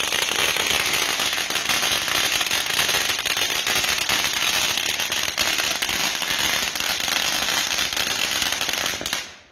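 A long string of firecrackers going off in a rapid, continuous crackle of small bangs, stopping abruptly near the end.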